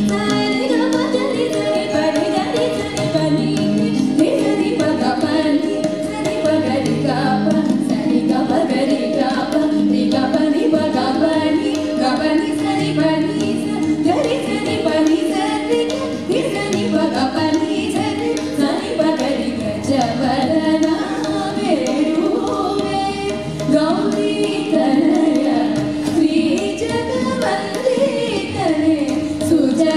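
Female voices singing a Carnatic song together, accompanied by tabla and an electronic keyboard, with a steady held tone under the singing.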